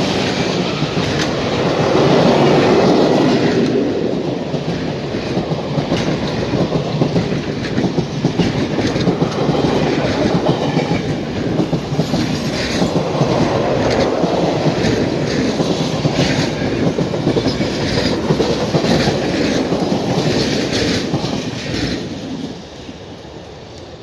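Heavyweight passenger coaches rolling past at speed, their wheels clattering over rail joints in a dense run of clicks and clacks. The sound drops away sharply near the end as the last car goes by.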